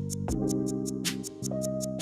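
Background music: held instrument notes over a steady beat.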